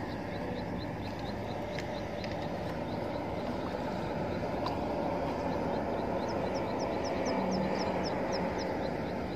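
A bird calling over and over with short, high, downward-sliding chirps, about three a second, growing louder past the middle, over a steady low outdoor rumble.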